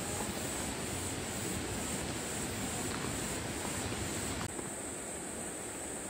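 Steady rushing noise of a mountain stream running beside the trail. About four and a half seconds in, it drops slightly and turns duller.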